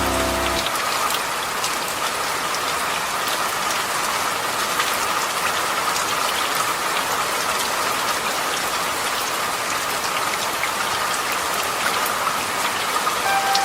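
Steady rain falling, an even hiss dotted with many small drop taps. Soft music notes fade out within the first second.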